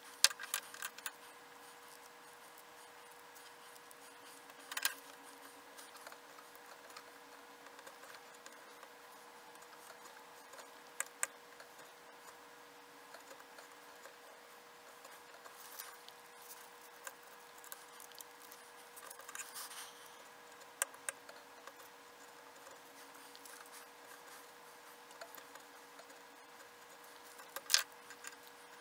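A hand carving tool scraping and nicking a thin wooden tongue depressor in short, scattered strokes, with a few sharper clicks (about a second in, near the middle and near the end), over a faint steady hum.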